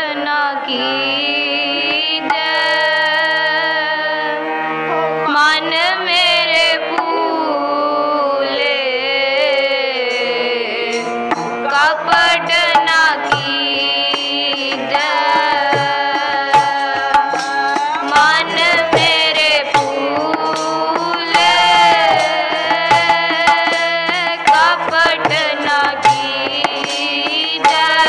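Shabad kirtan: a woman singing gurbani, her melody bending and ornamented, over steady harmonium chords. Tabla strokes come in about five seconds in and keep a dense rhythm after that.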